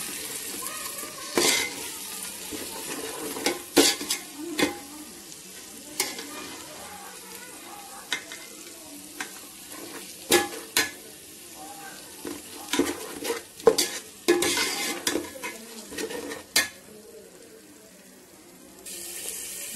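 A perforated steel spoon stirring a mint, coriander and green-chilli paste into fried onions in hot oil in a metal pot: the food sizzles while the spoon scrapes and knocks against the pot every second or two.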